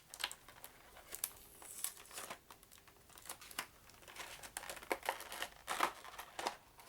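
Packaging crinkling and rustling in irregular bursts of crackles as miniatures are taken out of a game box.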